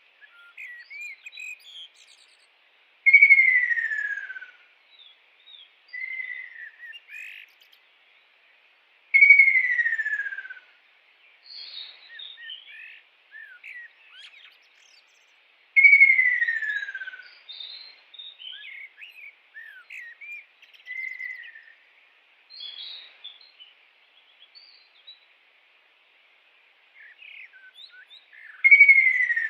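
Kingfisher calling: a loud descending whistle of about a second and a half, four times about six seconds apart, with softer short chirps and whistles between.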